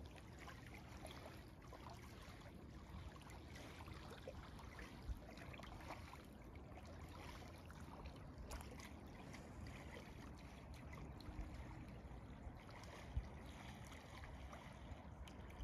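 Near silence with faint lapping of small waves at a gravel shoreline, and two faint knocks, about five seconds in and near the end.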